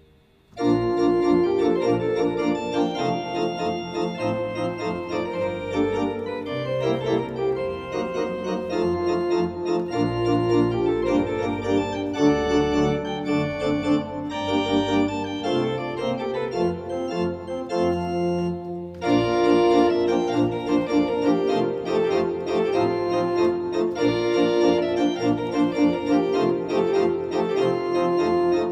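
Allen Historique digital classical organ playing a piece with sustained chords over a moving bass line, starting about half a second in; the sound breaks off briefly a little before 19 seconds, then carries on.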